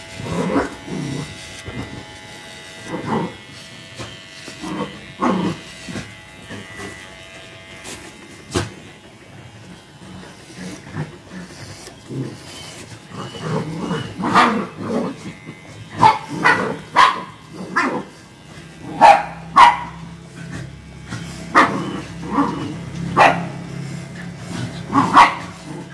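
Dogs barking in short sharp barks, sparse at first, then quicker and louder through the second half. Electric hair clippers buzz faintly under them during the first few seconds.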